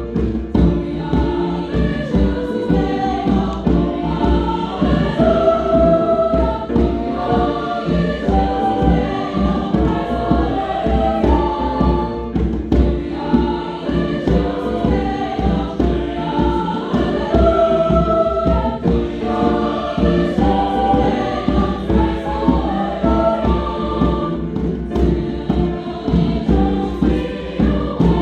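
Choir singing with instrumental accompaniment and a steady low beat.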